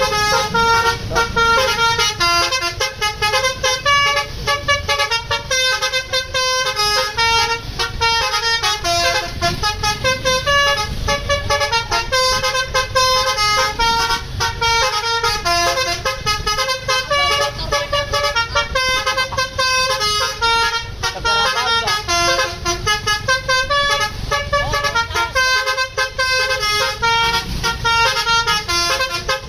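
Tour bus's basuri telolet horn, a multi-tone electric horn, playing a fast melody of stepping notes without a break, over the low rumble of engines.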